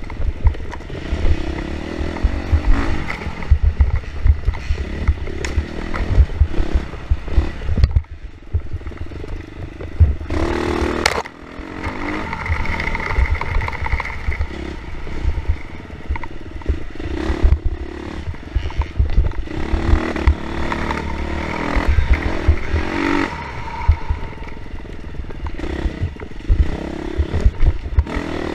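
Dirt bike engine being ridden hard through woods, its note rising and falling as the throttle opens and closes. There is a short loud rush of noise about ten seconds in.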